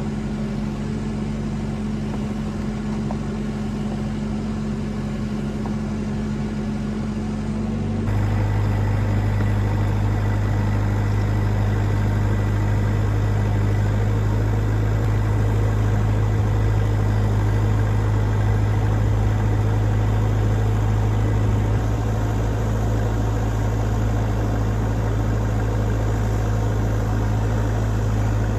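Bobcat E26 mini excavator's diesel engine running steadily, with a sudden step about eight seconds in to a louder, deeper hum that then holds steady.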